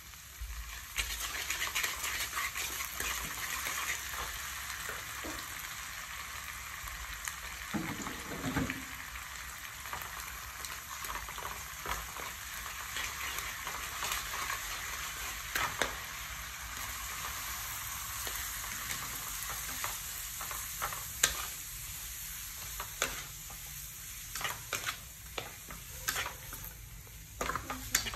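Minced garlic and spring onion sizzling in hot oil in a frying pan. The sizzle picks up about a second in as a dark sauce is poured onto it. A wooden spatula scrapes and taps the pan as it is stirred, with the clicks coming more often in the last several seconds.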